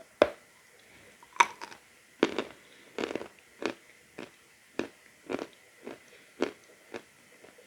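A person biting and chewing lumps of natural chalk: a series of sharp, dry crunches, about one every half second, the loudest two within the first second and a half.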